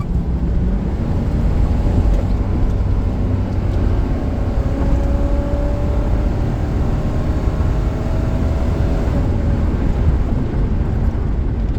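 V8 car engine pulling hard under acceleration from a rolling start: a steady low rumble, with a faint tone that slowly rises in pitch through the middle of the run.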